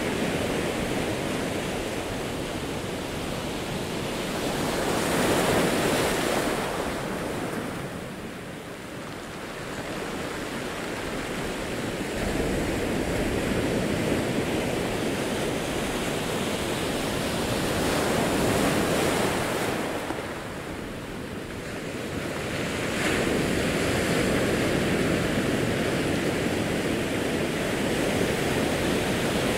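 Ocean surf breaking on a rocky shore: a steady rush of water that swells about five seconds in and again around eighteen seconds, easing back after each wave.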